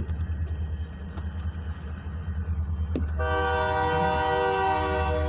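Diesel freight locomotive's air horn sounding one long chord from about three seconds in until near the end, over the steady low rumble of the locomotives' diesel engines.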